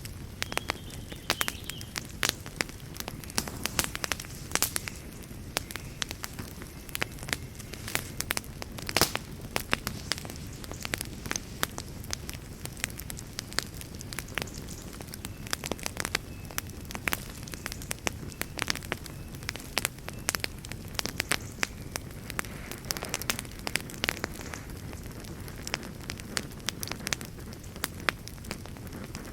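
Wood fire burning in a fireplace, with a steady low rumble of flames and frequent sharp, irregular crackles and pops from the burning logs.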